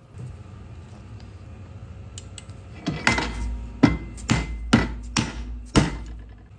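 Blows of a yellow-headed mallet on a part of a Rodcraft air screwdriver's air motor held in a bench vise: about six sharp strikes roughly half a second apart in the second half, each with a brief ring.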